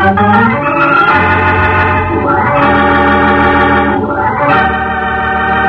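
Organ music bridge from a radio drama: loud held chords, with a rising sweep into a new chord about two seconds in and another about four seconds in.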